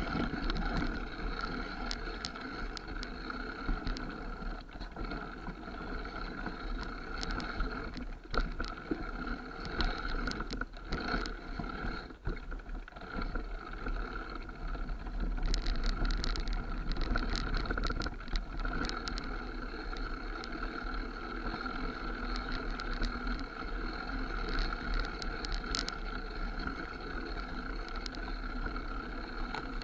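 Mountain bike riding down a rough dirt forest trail, heard from a camera mounted on the bike or rider: a steady whine runs throughout, with clusters of rattling and knocking as the bike goes over bumps, most of them a third of the way in and again around halfway.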